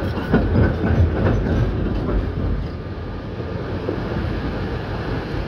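Konstal 105N2K tram running on rails. There is a run of knocks in the first couple of seconds, then a steadier rumble.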